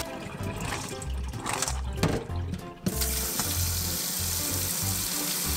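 Water poured out of a metal bowl of clams into a stainless steel sink, then, after a short lull, a kitchen tap running steadily into the bowl from about three seconds in, refilling it to soak the clams for another purge. Background music with a steady bass beat plays under it.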